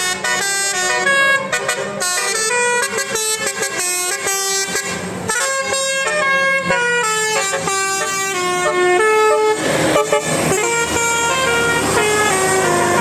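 Bus 'telolet' musical air horn of the Basuri kind playing a quick tune, its notes stepping from pitch to pitch without a break. A brief rush of noise comes about ten seconds in.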